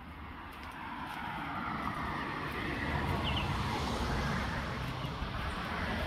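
A car on the road, its tyre and engine noise growing steadily louder as it approaches.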